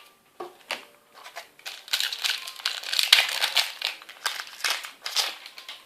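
Foil Yu-Gi-Oh booster pack wrapper being crinkled and torn open. A few scattered crackles, then a dense run of crinkling from about two seconds in that thins out near the end.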